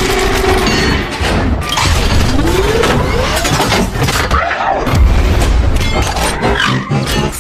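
Transformers robot transformation sound effect: a dense clatter of metallic clanks and clicks with mechanical whines gliding up and down in pitch, over a heavy low rumble.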